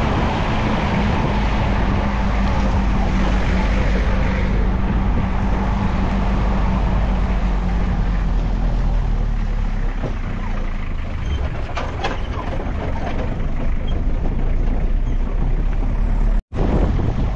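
Van engine and road noise, a steady low drone that eases off about ten seconds in, with a brief cut near the end.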